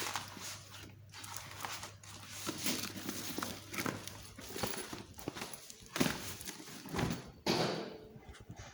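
A cat scrabbling and moving about inside a bag: irregular rustling scuffs and soft knocks, with two louder bumps in the second half.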